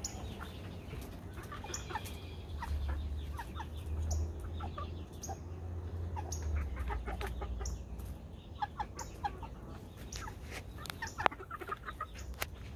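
A flock of young gamefowl clucking and chirping softly while pecking at feed in a dish, with many short sharp pecking ticks. A low rumble runs under them for a few seconds in the middle.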